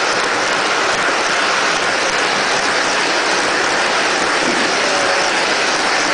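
O-gauge model passenger train passing close by, its metal wheels rolling on the track in a steady rushing noise.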